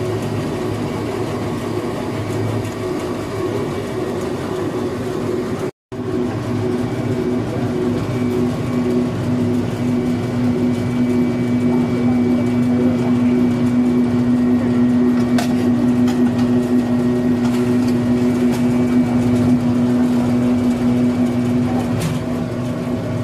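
Screw oil press running steadily under load as it presses oil cake, a constant mechanical hum with a steady tone. The sound drops out briefly about six seconds in, then the hum carries on with its tone a little stronger.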